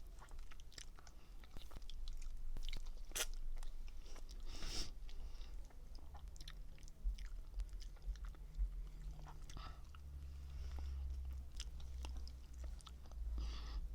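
Chewing and biting strawberry mochi, with many short mouth clicks at uneven intervals. A low rumble runs under it from about halfway on.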